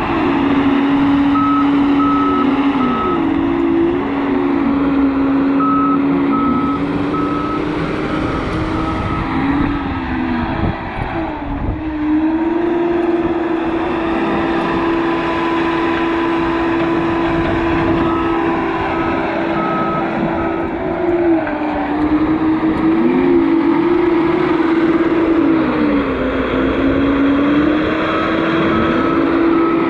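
John Deere compact track loader's diesel engine running hard at work, its pitch falling and rising several times. Its backup alarm beeps in short runs of a few beeps each time it reverses, four times in all.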